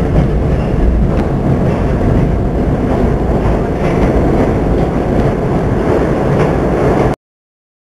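New York City subway N train running: a steady rumble with a few faint clicks, which cuts off abruptly about seven seconds in.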